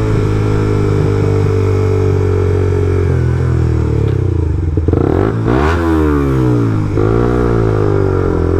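Suzuki GSX-R125's single-cylinder engine running at a steady pitch under way, then about five seconds in the revs drop and climb again a couple of times.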